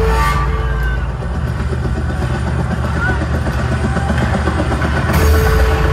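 Loud, bass-heavy music over a concert sound system, distorted by the phone microphone, with a held note that drops out about a second in and returns about five seconds in.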